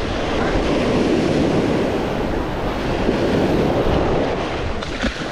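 Waves breaking and washing through shallow surf as a steady rush of water, with wind on the microphone.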